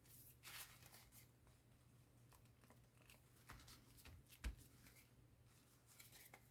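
Near silence: a few faint taps and soft brushing sounds of paper being dabbed and handled on a tabletop, over a low steady hum.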